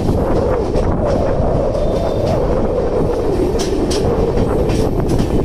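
Express passenger train running on the rails: a steady rumble with a tone that slowly falls in pitch, and a few wheel clicks in the second half.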